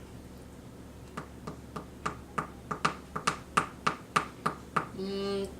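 A run of sharp, evenly spaced clicks, about four a second, growing louder, then a voice starts humming a held note near the end.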